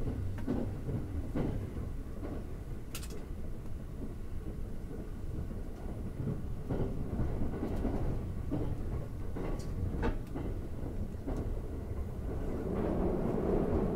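Running noise of the Thunderbird limited express heard from inside a passenger car at speed: a steady low rumble with scattered light clicks and knocks, swelling a little near the end.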